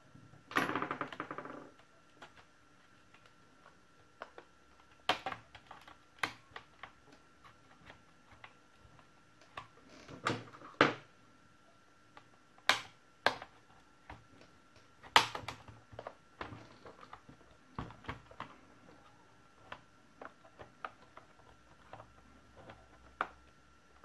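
Irregular sharp plastic clicks and snaps from an HP Compaq Presario CQ61 laptop's plastic palmrest as a plastic pry tool and fingers work along its seam, with a short rattle near the start.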